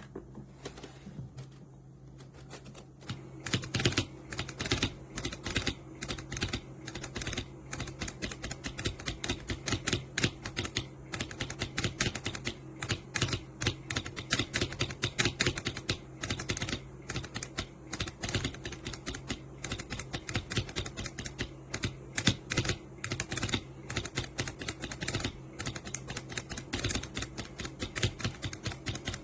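Fast typing on a computer keyboard: many quick, irregular key clicks a second over a steady low hum.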